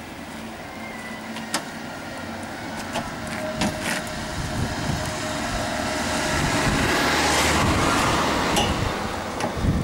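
Outdoor street sounds of a rake and wheelbarrow being worked on the pavement, with a few scattered sharp clicks and knocks of the tool. A rushing noise swells to its loudest in the second half and then eases off.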